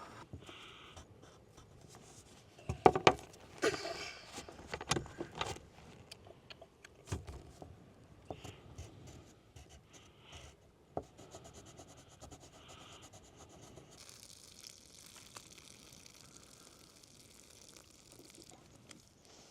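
Camp cookware and utensils being handled: scattered knocks, taps and scrapes, with the loudest cluster of knocks about three to five seconds in.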